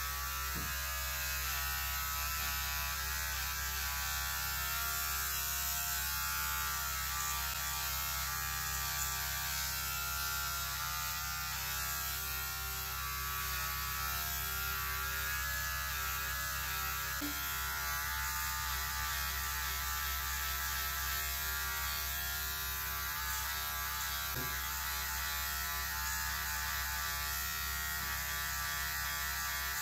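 Electric hair clippers buzzing steadily as they shave hair from the side of a head.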